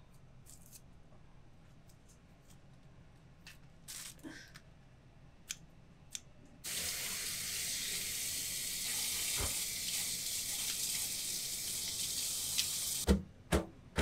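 A kitchen tap running into a basin in a stainless-steel sink: a steady hiss that starts suddenly about halfway through and cuts off about a second before the end, followed by a couple of knocks. Before it, faint snips and rustles as large green onions are trimmed with scissors.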